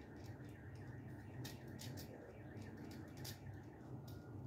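Faint clicks and light scrapes of stiff copper wires being handled and bent onto the terminal screws of a duplex receptacle, over a low steady hum.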